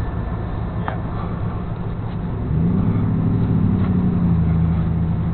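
Flatbed tow truck's engine running steadily, then rising in pitch about two and a half seconds in and holding at a higher, steady speed.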